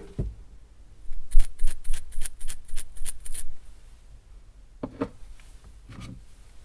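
Salt shaker shaken in a quick run of about ten bright rattles, roughly five a second, as the grains hit the inside. After a pause come two duller knocks.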